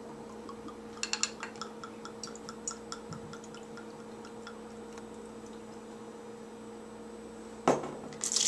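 Grain alcohol poured from a bottle into a plastic measuring cup, a run of small glugs and pinging drips for a few seconds. Near the end a sharp knock, then a splash as the cup is tipped into a plastic pitcher, over a faint steady hum.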